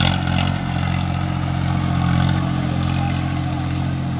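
Swaraj 855 tractor's three-cylinder diesel engine running hard and steady as the tractor drives and turns on grass, with a brief noisy burst at the very start.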